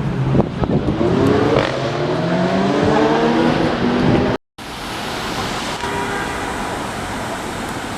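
A vehicle engine accelerating, its pitch rising over about four seconds. After an abrupt cut, a steady rushing noise takes over.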